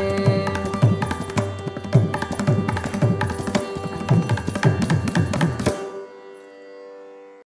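Mridangam playing rapid strokes with low sliding bass tones over a steady tanpura drone, closing a Carnatic vocal piece. The drumming stops about six seconds in, and the drone rings on faintly for a moment before cutting off.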